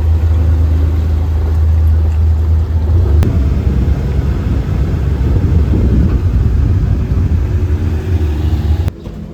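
Loud, steady low rumble of a moving vehicle ride that cuts off suddenly near the end.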